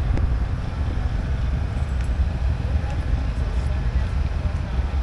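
Motorcycle engine running with a steady low rumble.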